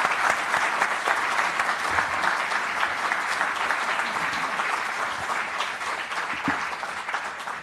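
Audience applauding: dense, steady clapping that slowly thins out near the end.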